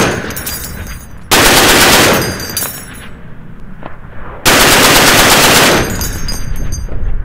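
Browning M2HB .50 BMG heavy machine gun firing short full-auto bursts: the tail of one burst at the start, then two more about 1.3 and 4.5 seconds in, the last the longest. Each burst is followed by a fading echo and the clinking of spent brass falling to the ground.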